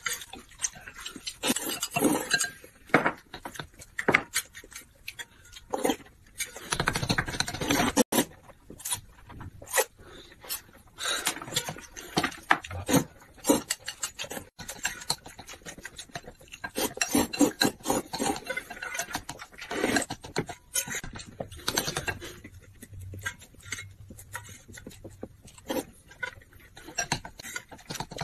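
Close-up eating sounds: noodles slurped and chewed, with chopsticks clicking and clinking irregularly against metal and glass bowls.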